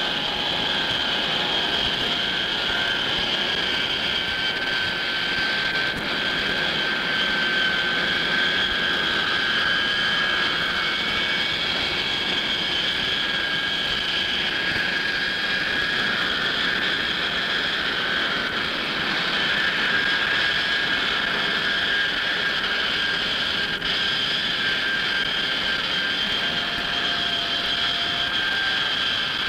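Jet engines of the Boeing 367-80 'Dash 80' prototype, Pratt & Whitney JT3 turbojets, running steadily as the airplane moves along the ground: a constant high-pitched turbine whine over a steady rush of jet noise.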